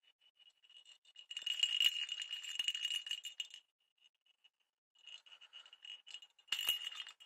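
Plastic cat-toy ball with a bell inside being shaken by hand, jingling and rattling in two spells: one of about two seconds starting a second in, and another from about five seconds, loudest near the end.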